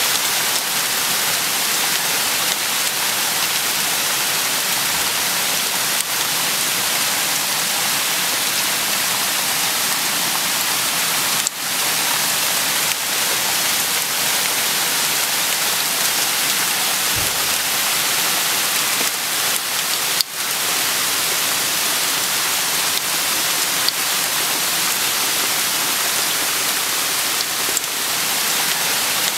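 Heavy rain falling steadily in a thunderstorm, a dense even hiss, with a couple of sharp clicks about a third and two-thirds of the way through.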